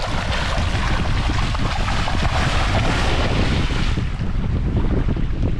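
A hooked shark thrashing and splashing at the surface in shallow water as it is reeled in. The splashing is heaviest in the first few seconds. Gusty wind rumbles on the microphone throughout.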